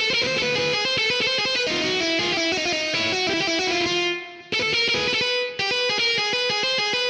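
Virtual electric guitar in the GarageBand app playing a melody in fast, rapidly repeated picked notes, breaking off briefly about four seconds in.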